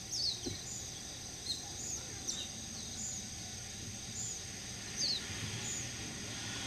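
Small birds chirping in short, high, repeated notes, over a faint steady high insect drone.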